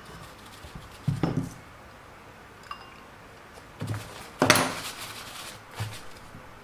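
A handful of scattered clinks and knocks as parts and utensils are handled against a pot and dishes. The loudest comes just after halfway.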